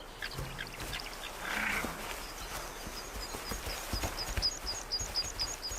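Quiet outdoor ambience with faint scuffles and a brief soft call, then a small bird calling rapidly in the second half, about four or five short high chirps a second.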